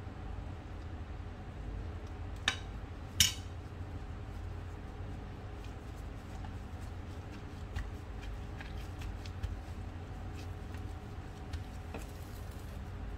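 A metal spoon clinks sharply twice against a frying pan, about two and a half and three seconds in, with a few faint taps later, over a steady low hum.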